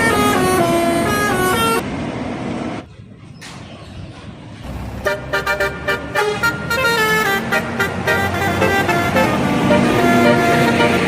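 Indonesian bus telolet horn playing a melody of stepped notes. It breaks off about two seconds in, and after a lull it comes back around five seconds in with quick stuttering notes, then longer held notes near the end.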